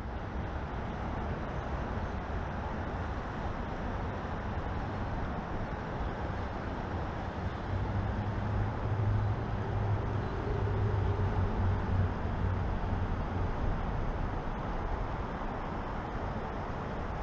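Steady rumble of road traffic, swelling into a deeper hum about halfway through as a vehicle passes, then settling back.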